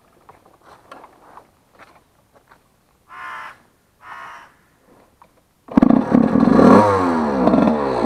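Two short crow caws about three and four seconds in over faint ticks; then, near the end, a motocross bike's engine cuts in loudly, its pitch rising again and again as it accelerates through the gears.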